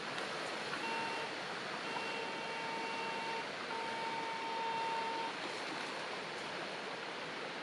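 Metal detector sounding a steady target tone three times, a short one about a second in and then two longer ones of about a second and a half each, the signal that metal lies under the search coil. Behind it a steady hiss of background noise.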